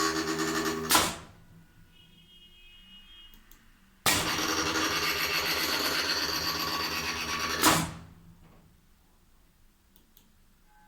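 CNC lathe's motor-driven tool-changer turret indexing twice: a loud steady motor whir that stops with a clunk about a second in, then after a quiet gap of about three seconds a second whir lasting about three and a half seconds that also ends in a clunk as the turret locks.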